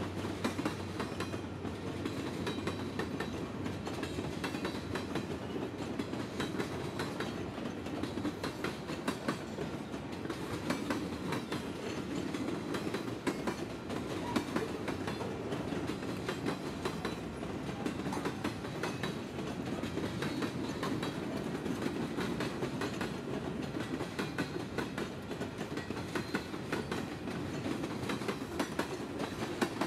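Freight cars of a Pan Am Railways freight train rolling past: a steady rumble with the wheels clicking and clacking over the rail joints.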